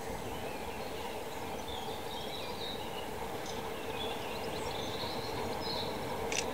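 A diesel locomotive's engine running steadily at a distance as it approaches, with birds chirping over it.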